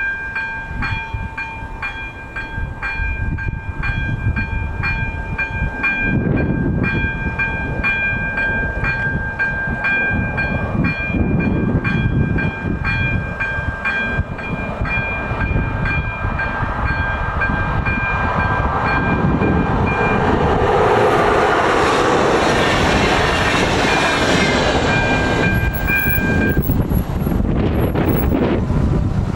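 Level-crossing electronic bell (AŽD ZV02) ringing with even, rapid strokes while a RegioJet passenger train hauled by a class 162 electric locomotive runs through the crossing, its wheel-and-track rumble growing and loudest in the second half. The bell stops near the end as the barriers begin to lift.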